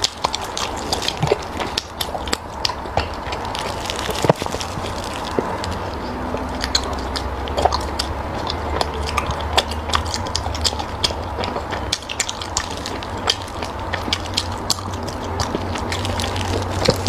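Close-miked chewing: wet mouth clicks and smacks come thick and fast throughout, over a steady low hum.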